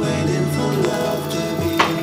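Background music: an instrumental-pop song track.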